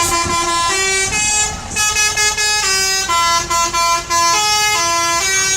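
Indonesian 'telolet' bus horn, a set of musical air horns, playing a tune of held notes that step up and down in pitch, with a few short breaks between phrases.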